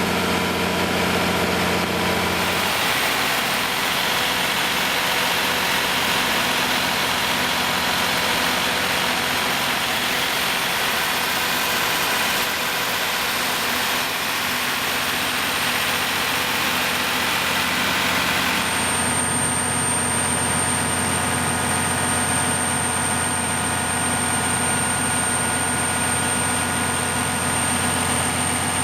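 Kohler 350 kW diesel generator set's Detroit Diesel engine running steadily. About two seconds in the sound takes on more high hiss, and about two-thirds of the way through the hiss drops and a steady high-pitched whine comes in over the engine's drone.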